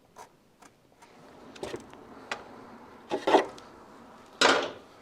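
Hand tools working on a motorcycle's front end: scattered small metallic clicks and taps, then two louder rasping clatters, a little past three seconds in and again at about four and a half seconds.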